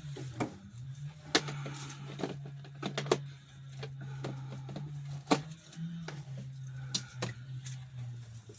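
Steel sockets clinking and clattering in a socket set as they are picked through and tried for size, a dozen or so sharp irregular clicks. A steady low hum runs underneath.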